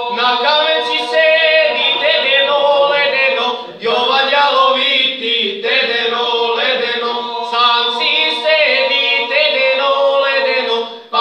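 A group of men singing a traditional Serbian folk song a cappella, in long held phrases with a short break for breath about four seconds in.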